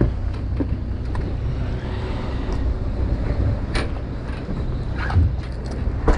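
Steady low drone of a charter boat's engine running, with a few sharp clicks and knocks from tackle and handling on deck about four, five and six seconds in.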